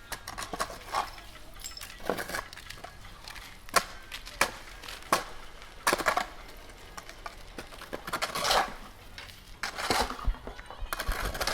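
Construction debris being cleared: irregular sharp knocks and clinks of rubble being moved, with a couple of longer scrapes in the second half.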